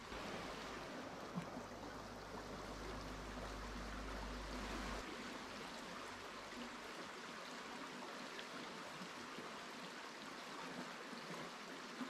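Steady rushing of a shallow river flowing over its limestone rock bed, with a few faint taps.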